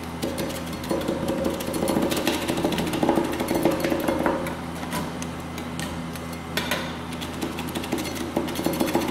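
Metal spatulas chopping and scraping on a stainless steel cold plate, working corn-puff snacks into an ice cream base: rapid irregular clacks and scrapes, busiest in the middle, over a steady low hum.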